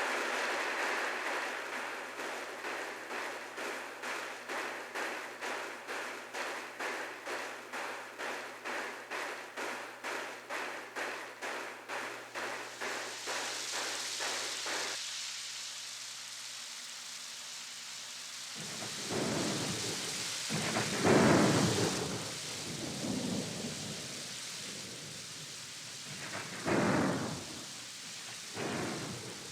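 Rain sound effect: a hiss of falling rain that pulses about twice a second at first, then evens out into steady rain. Several rolls of thunder come in over it from about two-thirds of the way through.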